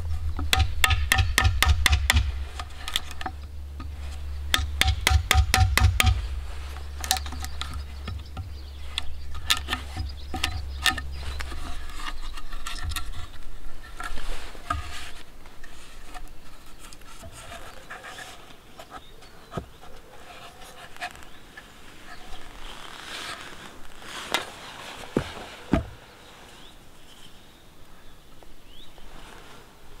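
Wood chisel working into a peeled log on a chopping stump: quick runs of sharp cracks and taps as the wood splits, then slower single knocks, thinning to a few scattered ones later.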